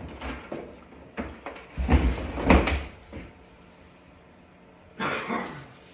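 Cardboard and foam packing being rummaged through and shifted by hand, in several short bursts of scraping and rustling with dull knocks. The loudest burst comes about two seconds in, and another near the end.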